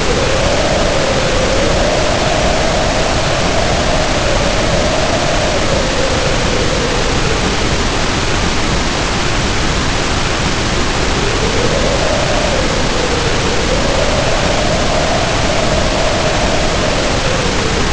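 Storm sound effect: a steady, dense rushing noise with a howling wind tone that rises and falls slowly, swelling twice.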